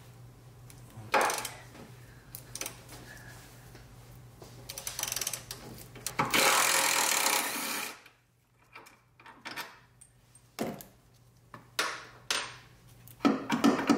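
Hand tools on a 14 mm engine mount bolt: a sharp crack about a second in as the long extension bar breaks the bolt's torque, a dense rattling burst of just under two seconds around the middle, then several metal clinks of tools near the end.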